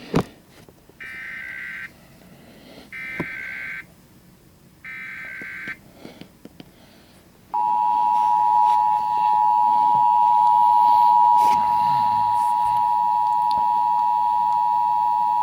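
US Emergency Alert System broadcast: three short bursts of the screechy digital SAME header tone, about a second apart, then a steady two-tone attention signal that starts about seven and a half seconds in and holds for about eight seconds.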